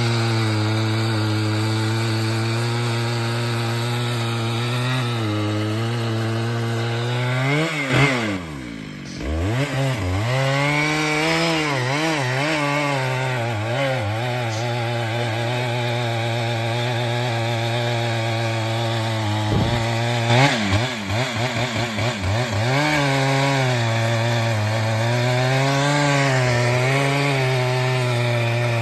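Chainsaw running at high speed while cutting wood. The engine drops off sharply and picks up again about eight seconds in, and its pitch wavers and stutters under load around twenty seconds in.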